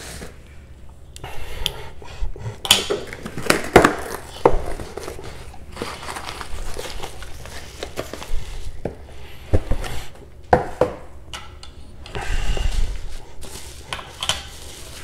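A cardboard shipping box being slit open with a pocket knife and unpacked: scraping and rustling of cardboard, crinkling of foam and bubble-wrap packing, with scattered sharp knocks and taps as the package is handled on a wooden cutting board.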